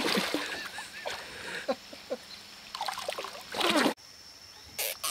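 A fish splashing and thrashing at the surface of the river as it is released and swims off, with water sloshing. A brief loud burst comes just before the sound cuts off abruptly about four seconds in.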